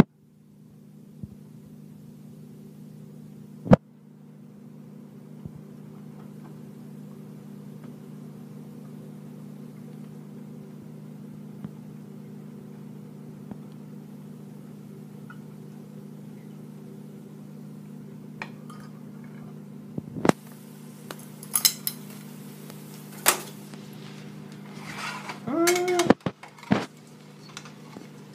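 A steady motor hum under scattered clinks and knocks of a metal whisk, measuring cup and spatula against a ceramic batter bowl and a stainless steel frying pan. The clinks come thickest in the last several seconds, with one short squeak among them.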